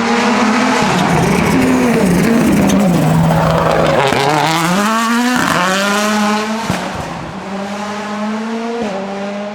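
Rally car engine going through a corner: the revs drop as it slows, then climb hard twice with a quick upshift between, and a sharp crack comes about two-thirds of the way through. Tyres squeal along with the engine.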